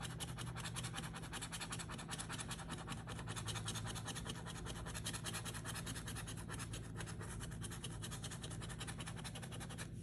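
A coin scratching the latex coating off a scratch-off lottery ticket in rapid, steady back-and-forth strokes, over a steady low hum.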